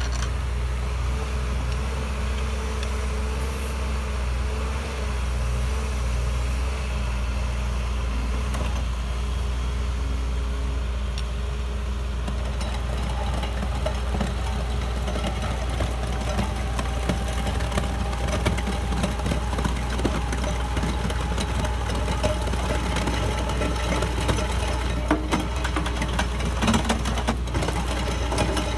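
Cat 316E excavator's diesel engine running steadily under load. About twelve seconds in, the Simex VSE screening bucket starts working, adding a dense rattle of soil and small stones tumbling through its screen and a steady whine, busier toward the end.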